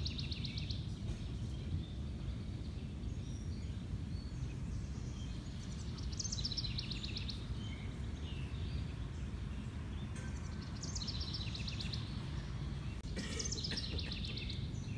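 A songbird singing a short, fast trill that slides downward, four times, over a steady low rumble.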